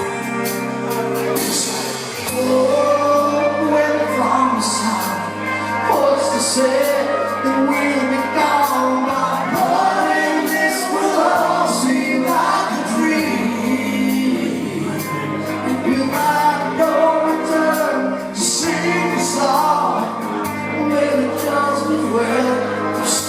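Live rock band playing heavy rock, with a male lead vocal over sustained bass notes, guitars and recurring cymbal crashes.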